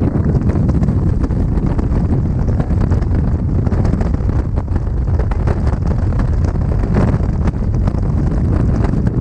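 Rushing air of a tandem skydive freefall buffeting the camera microphone: a loud, steady, low rumble of wind noise.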